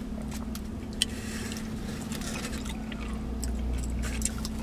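Eating sounds: a plastic fork picking and tapping at oxtail meat in a foam takeout container, with small chewing noises, over a steady low hum inside a vehicle cabin. One sharp tick about a second in, and the low rumble swells in the second half.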